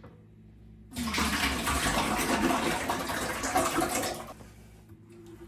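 Chicken stock poured in a steady stream from a large plastic measuring container into a stainless steel stockpot, starting about a second in and dying away a little past the four-second mark.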